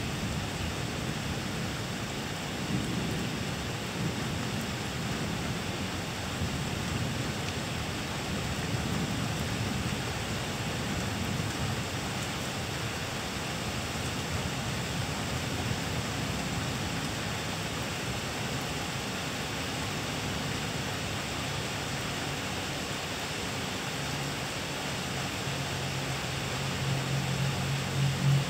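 Rain falling steadily in a thunderstorm, with low, uneven rumbles of thunder underneath. A deeper, steadier rumble grows louder near the end.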